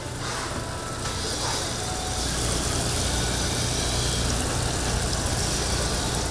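A steady low mechanical hum under an even hiss, growing slightly louder over the first two seconds.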